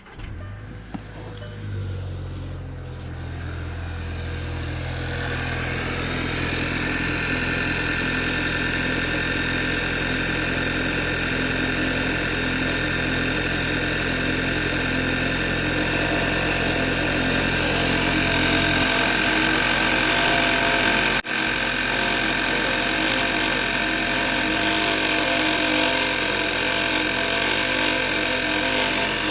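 Car engine cold-started and idling. About five seconds in, a steady high whine comes in over the idle and stays. The low engine note drops a little over halfway through. The whine is the sign of a failing alternator, and it went away once the alternator was replaced.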